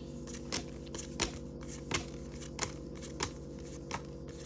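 Trading cards being flipped through one at a time, a short card slap about every two-thirds of a second, over a steady low hum.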